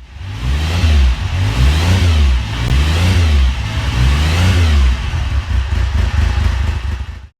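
An engine revved up and down repeatedly, its pitch rising and falling about four times, then cutting off suddenly.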